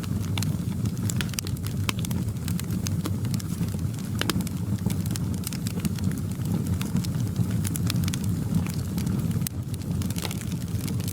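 Fireplace fire crackling: frequent sharp, irregular pops over a steady low rumble of the flames.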